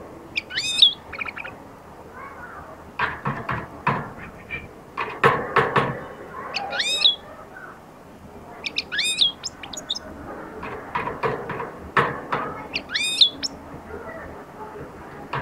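Caged goldfinch in broken early song: bursts of short twittering notes with gaps between, and four quick rising whistled sweeps spread through.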